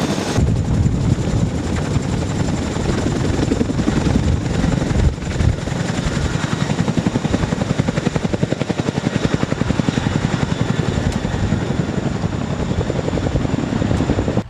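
CH-47 Chinook tandem-rotor helicopter flying, its rotor blades thudding in a rapid, steady beat over a faint high steady whine.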